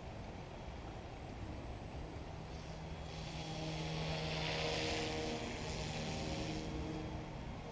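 Yu Xiang UH-1 Huey remote-control helicopter in flight: its motor and rotor buzz with a steady pitched hum. It grows louder and hissier in the middle, then eases off.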